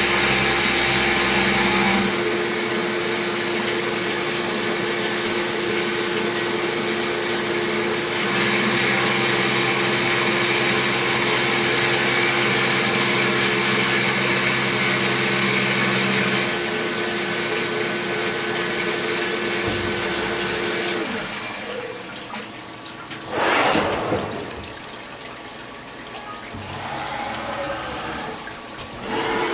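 CNC milling machine roughing an aluminium block with a long end mill under flood coolant: a steady spindle hum under cutting noise and coolant spray, with the cut's load changing about 2 and 16 seconds in. The cutting stops about 21 seconds in; a brief loud noise follows a couple of seconds later, then a hand rustles through the pile of metal chips near the end.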